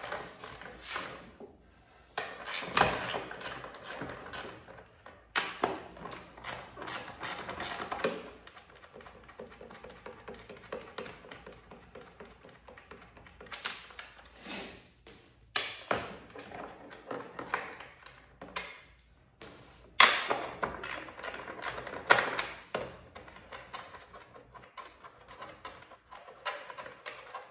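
Ratchet socket wrench clicking in quick runs as the bolts holding a push mower's recoil starter housing are undone, with a few louder knocks in between.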